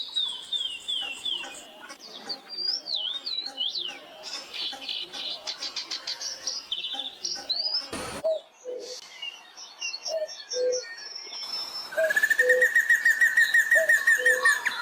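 Forest birdsong from several different birds in turn: falling whistles and trills give way, about halfway through, to a low two-note hoot repeated about once a second under a thin high trill. Near the end a loud, fast trill of evenly repeated notes takes over.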